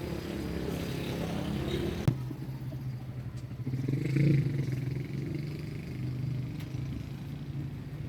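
A vehicle engine running steadily, with one sharp click about two seconds in.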